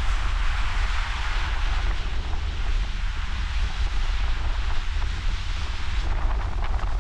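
Wind buffeting the microphone with a steady low rumble, over the hiss of surf washing on the shore; the surf turns rougher and splashier near the end.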